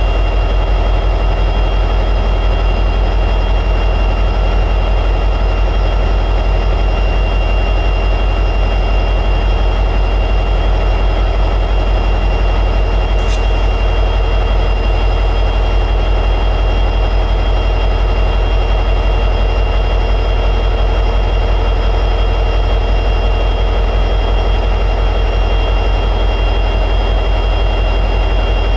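EMD 710G3B two-stroke diesel prime mover of an SD60E locomotive running steadily at high idle, with a loud low hum and a constant high whine over it. There is one faint click about halfway through.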